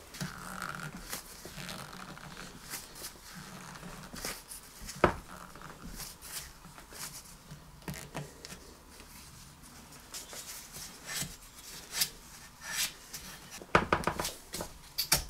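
Nitrile-gloved hands handling a grimy rubber part against a small generator engine: glove rustling with scattered small clicks and taps, one sharp knock about five seconds in, and a quick cluster of clicks near the end.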